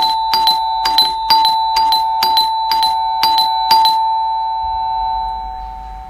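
Doorbell chime rung over and over in quick succession, about ten strikes in four seconds, each ringing into the next. The strikes stop about four seconds in, and the last chime rings on and fades over a low rumble.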